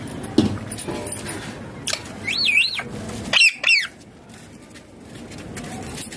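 Ringneck parakeet calling: a warbling, wavering whistle-like call about two seconds in, followed by two short squawky calls about a second later.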